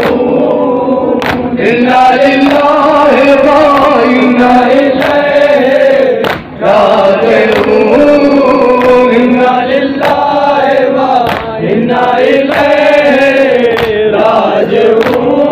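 Men chanting a Shia Muharram mourning chant together in long, drawn-out sung phrases, with a short break about six seconds in.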